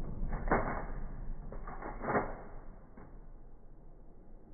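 The slowed-down boom of a 12-gauge shotgun blast fading away in an indoor range, with two dull knocks, about half a second and about two seconds in, and a faint one a little later.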